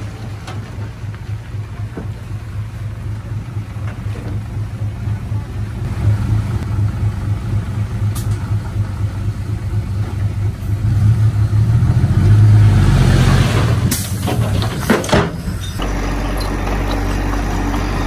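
Heavy diesel engine of earthmoving machinery running with a low throb, growing louder and working harder around the middle. A hiss with a few sharp knocks follows, then near the end the sound changes suddenly to a steady idle.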